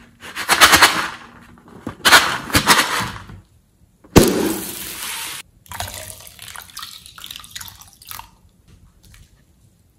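Two loud rustling bursts in the first three seconds. A sharp snip comes about four seconds in as the balloon is cut open with scissors. Its liquid gushes out into a bowl of slime for about a second, stops abruptly, then trickles and drips for a few seconds.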